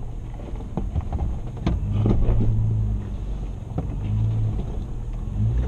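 Toyota FJ Cruiser's V6 engine running at low revs under load while crawling over rocks, heard from inside the cabin, its drone swelling twice. A few sharp knocks sound through it as the vehicle works over the rocks.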